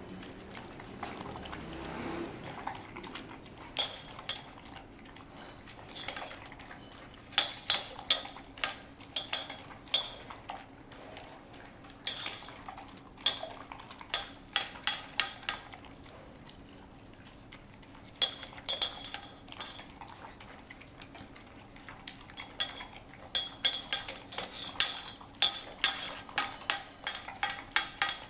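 Saint Bernard puppy at its breakfast bowl: repeated bursts of metallic clinking and jangling a few seconds apart, as tags or bowl knock about while it eats.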